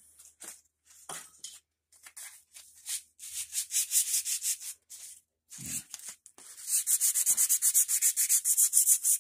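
Sandpaper rubbed by hand along the old finished wooden handle of a small ball peen hammer. Scattered scratchy strokes at first, then a quicker even run of strokes, about six a second, near the end.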